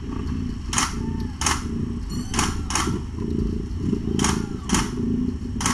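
Mother cat purring steadily while nursing her kittens, a low continuous rumble, with about seven short rasping sounds scattered over it.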